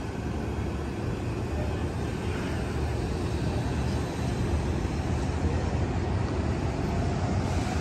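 Amtrak Capitol Corridor passenger train pulling out of the station, its bilevel cars rolling past with a steady low rumble that slowly grows louder.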